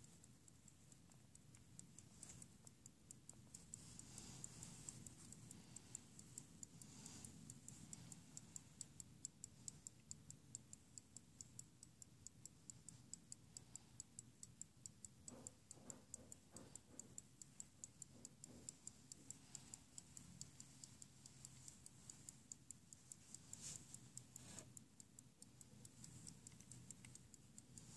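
Antique verge fusee pocket watch running: its verge escapement gives a faint, fast, even ticking. A few soft knocks from the case being handled come midway.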